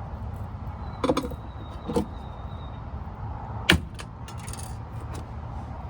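A few sharp knocks and clicks over a steady low rumble: one about a second in, one at two seconds, the loudest about three and a half seconds in, then fainter ticks.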